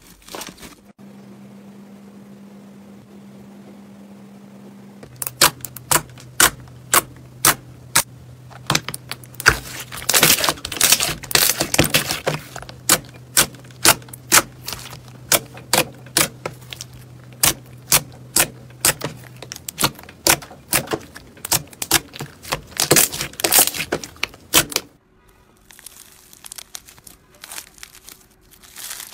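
Fingers pressing and squeezing slime, giving a string of sharp pops and clicks as trapped air bursts, irregular and sometimes in quick runs, over a low steady hum. Near the end, foam-bead slime (floam) being handled makes a quieter crackle.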